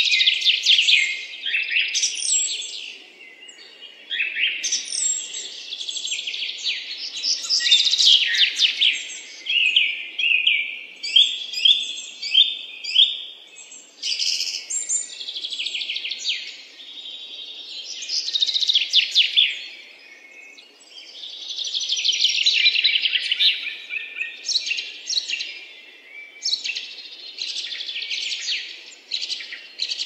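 Songbirds chirping and singing: quick runs of high, rapid trills and tweets, overlapping one another, with a few brief lulls.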